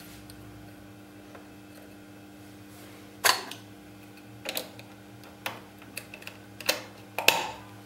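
Short clicks and scrapes of a plastic bobbin being set into a sewing machine's drop-in bobbin case and its thread drawn through the guide slot under the needle plate, about six in all, the first about three seconds in and the loudest near the end, over a faint steady hum.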